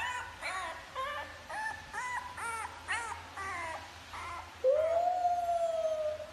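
French bulldog puppy giving a string of short, high whining yips, about two a second, then one long howl that starts about four and a half seconds in, rising and then slowly falling.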